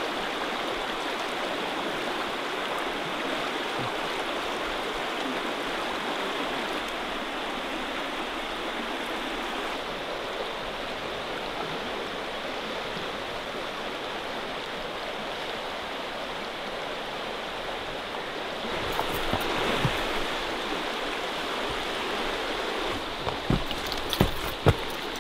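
River water rushing steadily over rocks, a little louder about three-quarters of the way through. Near the end come a few sharp knocks and handling noise as the camera is carried along the trail.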